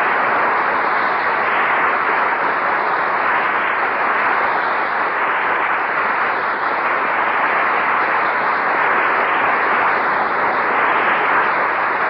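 Studio audience applauding steadily at the end of the radio comedy's act.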